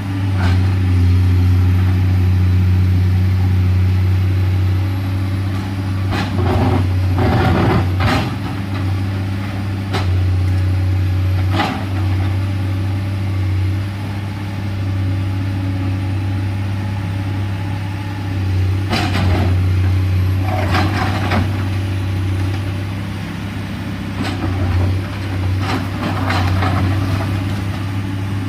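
Komatsu PC210LC excavator working: its diesel engine runs steadily under load, with several short, sharp knocks and scrapes as it digs into the ground.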